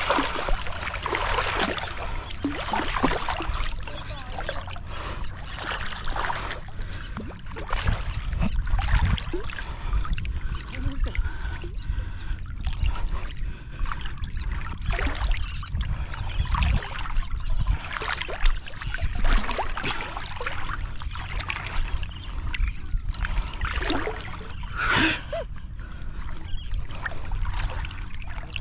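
Seawater splashing and sloshing in irregular bursts as a hooked fish thrashes at the surface and is played on a bent spinning rod.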